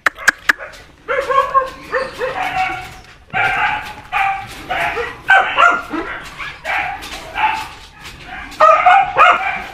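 Dogs whining and yelping: a quick, unbroken series of short high calls.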